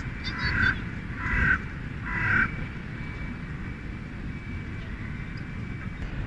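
A crow cawing three times, each call about a second apart, over a steady low background rumble.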